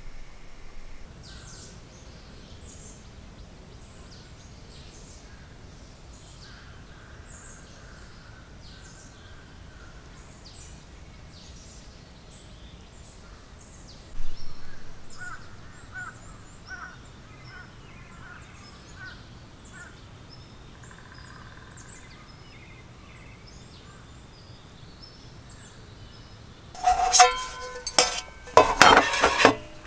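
Birds chirping and calling in a forest, short chirps and repeated notes over a faint steady hiss, with a brief louder swell of noise about halfway through. Near the end, loud clinking and clattering of camping gear being handled on a table.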